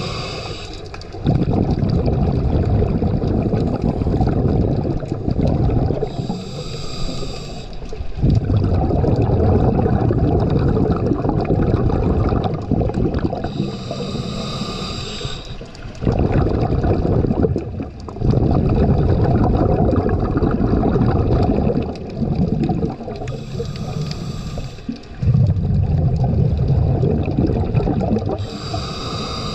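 Scuba regulator breathing: a hissing inhale lasting a second or two, then a longer rush of bubbling exhaled air, repeating about every seven to eight seconds.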